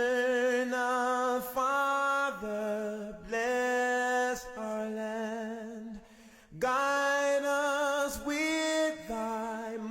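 Unaccompanied singing: one voice holding long notes with vibrato. It breaks off briefly about six seconds in.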